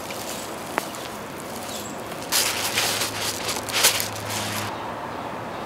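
Rustling and scraping of leaves, soil and bark mulch as a heuchera is pulled up out of the bed, in a loud uneven burst of about two seconds midway.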